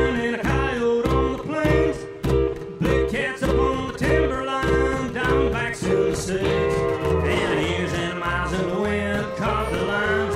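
Live country band playing an instrumental break: acoustic guitar strummed, upright bass plucked on a steady beat of about two notes a second, and pedal steel guitar playing sliding lead lines.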